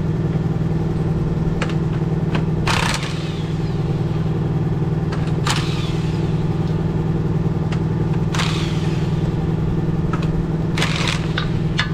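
An engine running steadily, with a series of sharp metal clanks and knocks from work on a truck's Dayton wheel and hub, a few of them ringing briefly.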